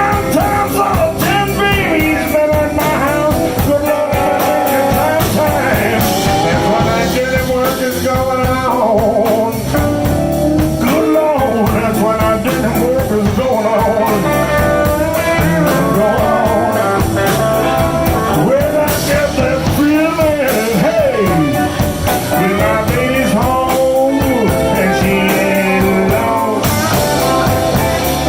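Blues band playing live, with a guitar line bending notes over the band.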